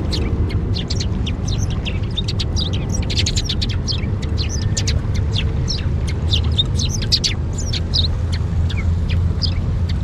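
Small birds chirping in rapid, overlapping short calls, over a steady low rumble.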